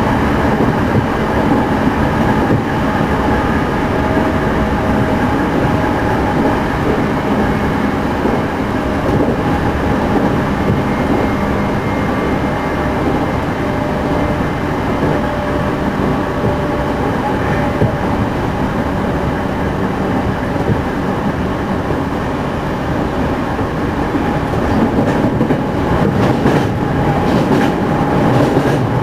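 Running noise heard inside a JR Central 211 series electric motor car, KuMoHa 211-5612, at steady speed. Steady whining tones from the traction-motor drive sit over the wheel and rail noise with some clickety-clack of rail joints. This car is known for an unusually loud, abnormal drive noise.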